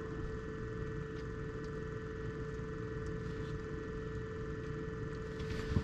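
Steady hum of a small motor, with a constant mid-pitched tone over a low rumble.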